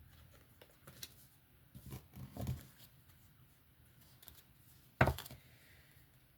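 Deck of oracle cards being handled and shuffled: a few soft flicks and rustles, then one sharp knock about five seconds in.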